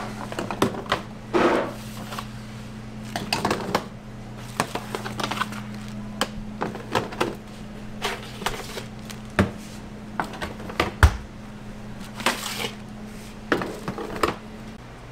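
Irregular clicks, taps and clatter of utensils and equipment during waffle making, with a few louder knocks, over a steady hum that stops near the end.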